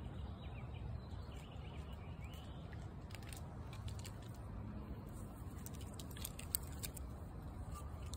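A squirrel's claws clicking and scratching on rough tree bark as it climbs head-first down the trunk, with one sharper snap about six and a half seconds in. Faint bird chirps come in the first couple of seconds over a low steady outdoor rumble.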